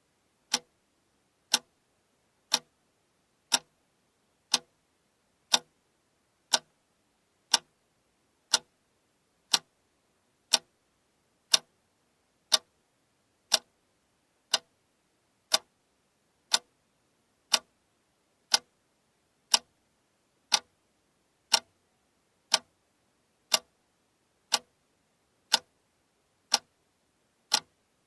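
Alarm clock ticking, one sharp, even click each second.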